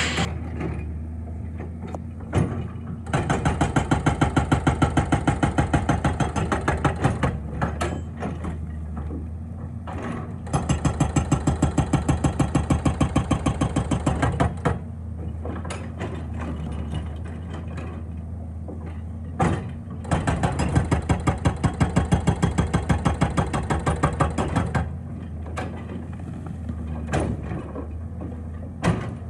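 Excavator-mounted hydraulic breaker hammering rock in runs of rapid, evenly spaced blows lasting several seconds, with the excavator's diesel engine running steadily underneath and between the runs.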